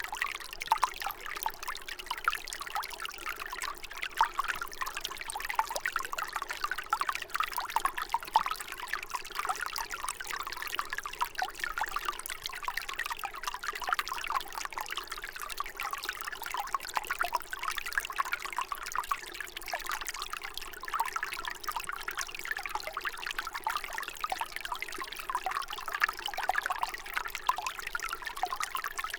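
Water trickling and bubbling continuously, a dense run of small gurgles and drips at a steady level.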